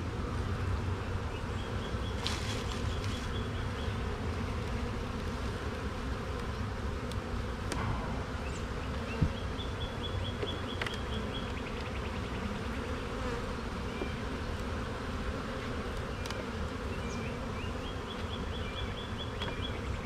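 Honeybees buzzing in a steady drone around an opened hive, with a few sharp clicks and knocks about halfway through.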